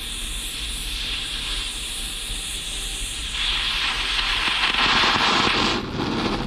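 Gas blowtorch flame hissing steadily as it burns a diesel heater burner clean. A little over three seconds in, the hiss swells louder and fuller for about two and a half seconds, then drops back.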